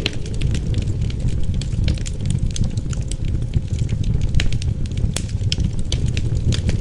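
Wood fire crackling, with many small irregular pops and snaps, over a steady low rumble of wind.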